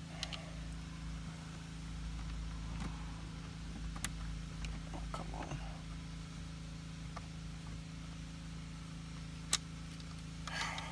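Steady low hum inside the car cabin, with a few small clicks and taps as a dash-monitor bolt is handled and worked toward its hole with a magnet, and one sharp click near the end.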